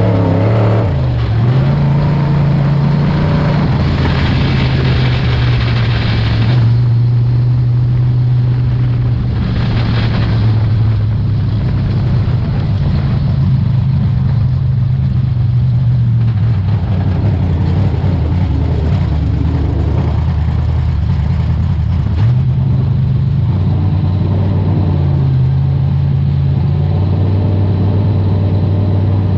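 Dirt late model race car's V8 engine running hard at racing speed, its pitch holding steady and then dropping and climbing again several times as the driver lifts and gets back on the throttle through the corners.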